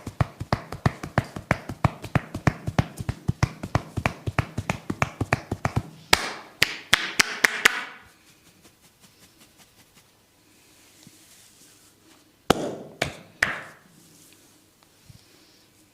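Fast, even tapping of hands on a person's head during a head massage, about six sharp taps a second. About six seconds in, and again near the end, short bursts of crackling snaps with a rubbing rustle.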